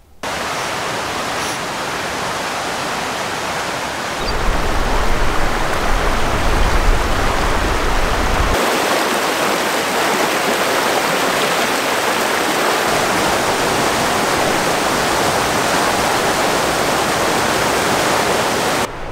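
Rushing water of a mountain river, a loud steady hiss that changes abruptly twice at cuts, with a deep low rumble added from about four to eight and a half seconds in.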